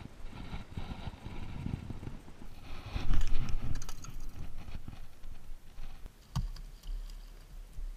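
Wind rumbling on the microphone and handling noise with irregular knocks, loudest around three seconds in, and one sharp click about six and a half seconds in.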